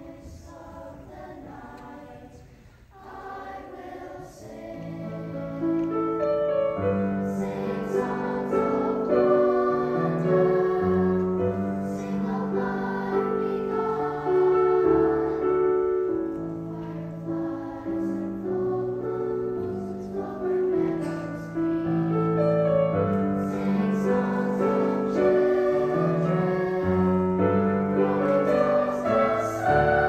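Children's choir singing, starting softly and swelling to full voice about four to six seconds in.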